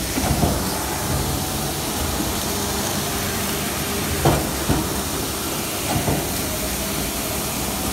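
Automatic plastic-cutlery packaging machine running: a steady hiss and machine hum, with a few short sharp clacks, the loudest about four seconds in.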